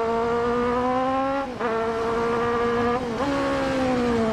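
Kawasaki Z900 inline-four engine accelerating hard under the rider, changing up a gear twice, each change a short dip in the note, the note levelling off and easing slightly near the end.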